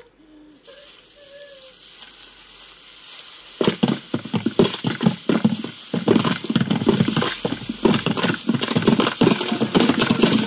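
Foley track of a film fight scene: a faint hiss, then from about three and a half seconds in a dense, irregular clatter of many running footsteps, scuffles and crunching impacts as a group charges in, ending in a loud rush of noise.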